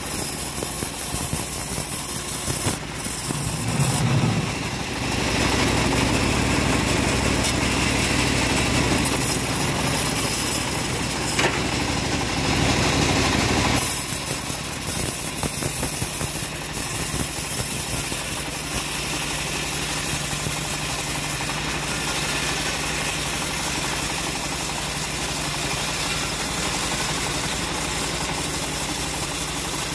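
Home-built bandsaw mill running as its blade rips a slab of hard jowar (Siamese cassia) wood. The sound grows louder and fuller about four seconds in, then settles to a steadier, slightly lower run about fourteen seconds in.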